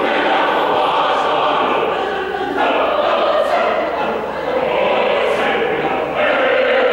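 Large choir of young voices singing together in harmony, a continuous sustained sound of many voices.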